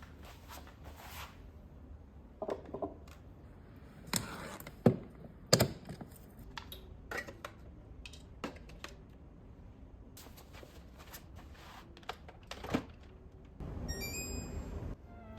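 Scattered clicks, taps and knocks of small objects being handled, with a few keyboard-like clicks in the first second. Near the end comes a steady rushing sound about a second and a half long.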